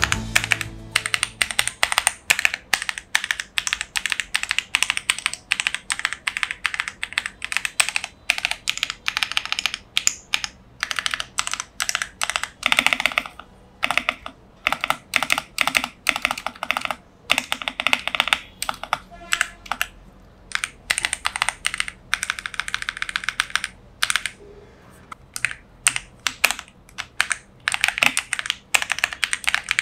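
A MageGee SKY81 wireless 75% mechanical keyboard being typed on in quick runs of keystrokes with short pauses between them. The reviewer judges its factory switches scratchy and its lightly lubed stabilizers rattly.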